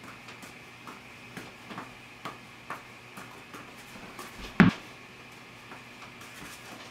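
Tennis balls being juggled: soft slaps of the balls landing in the hands, about two a second, with one much louder thump about four and a half seconds in.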